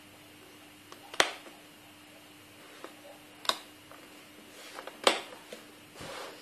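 Three sharp clicks or knocks of hard objects being handled, about two seconds apart, over a faint steady hum.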